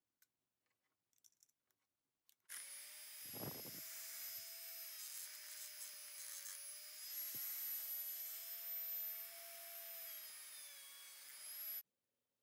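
Handheld rotary tool running at high speed on rusted steel needle-nose pliers: a steady high-pitched whine over a hiss, with a low knock about a second after it starts. It cuts off suddenly near the end.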